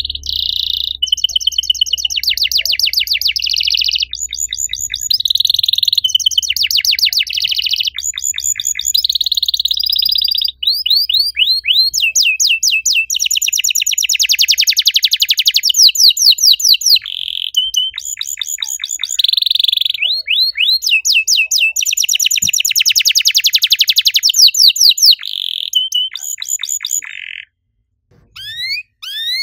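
Domestic canary singing a long, fast song of rapid trills and repeated chirping notes, with a short break near the end.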